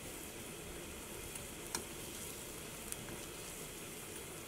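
A lump of asafoetida sizzling steadily as it fries in hot sunflower oil, being fried until crisp and puffed for grinding. A steel spoon turning it gives two light clicks against the pan.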